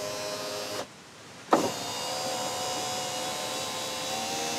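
2000 Honda Insight driver's-side power window motor and freshly greased regulator running the glass. It stops a little under a second in, then starts again with a sharp knock and runs on steadily at a slightly higher pitch.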